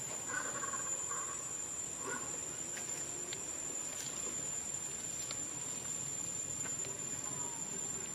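Insects, crickets or cicadas, making a steady high-pitched drone, with a few short chirping calls in the first two seconds.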